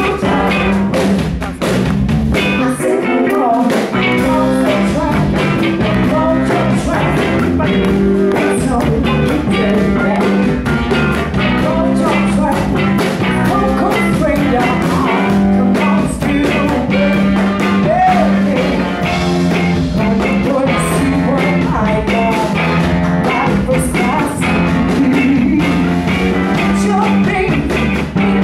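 A rhythm-and-blues band playing live: a woman singing lead over electric guitar, electric bass and drums.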